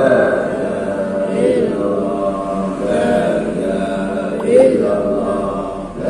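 Men's voices chanting dhikr together, the same short phrase repeated about every second and a half in a steady rhythm.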